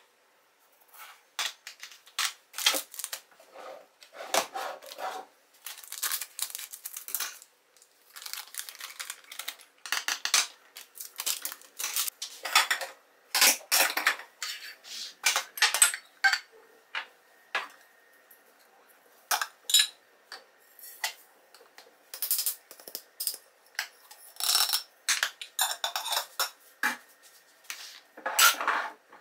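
Metal tea and coffee tins being handled and set down on a hard countertop: a string of clinks, knocks and short scrapes, with lids and a scoop rattling.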